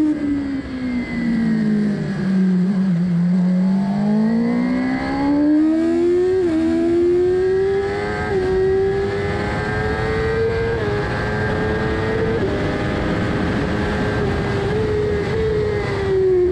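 Motorcycle engine on a racetrack. The revs drop through a slow corner, then the bike accelerates hard down the straight, with several quick upshifts heard as brief dips in pitch. The revs fall again as it brakes at the end, with wind rush throughout.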